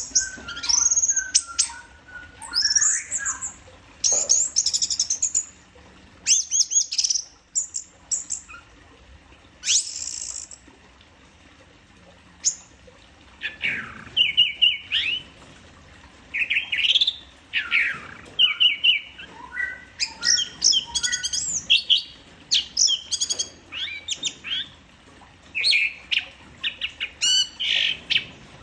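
Orange-headed thrush singing in full, continuous song ('teler'): quick, varied phrases of sliding whistles and chattering notes in bursts, with a lull of a couple of seconds a little before the middle.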